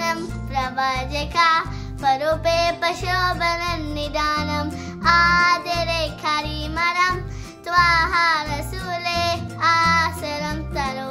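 A young girl singing a song in phrases, with instrumental music and a low pulsing beat underneath.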